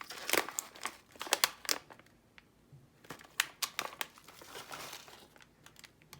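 Snack wrappers crinkling as packaged snacks are handled, a dense flurry of sharp crinkles for about the first two seconds, then sparser crinkles.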